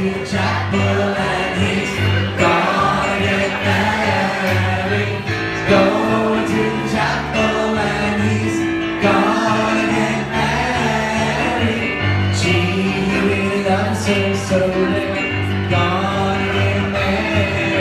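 Live piano playing with singing, several voices singing together.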